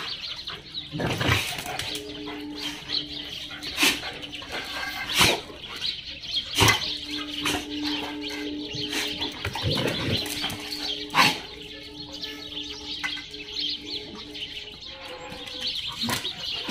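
Dogs play-wrestling on a tiled floor: scuffling with scattered sharp knocks, over birds chirping in the background. A steady low hum runs through most of the middle.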